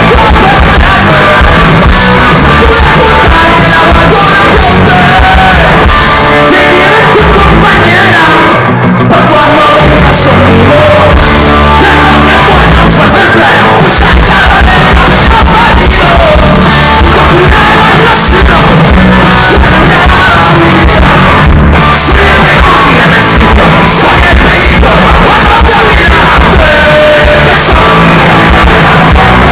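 Live rock band playing loudly, with a singer's vocals over guitars and drums.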